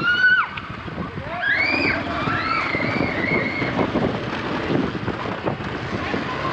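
Children shouting and whooping in high voices, once right at the start and again in a run of calls that rise and fall during the first half, over wind buffeting the microphone and a motorcycle engine running.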